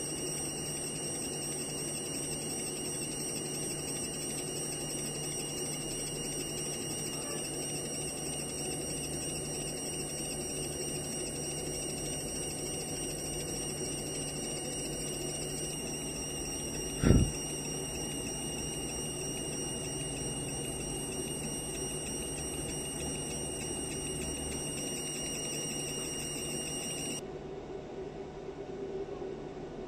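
50 W fiber laser marking machine engraving a photo into a stainless steel dog tag: a steady high-pitched whine from the scanning laser over a low hum, which cuts off near the end as the marking stops. A single short thump is heard about halfway through.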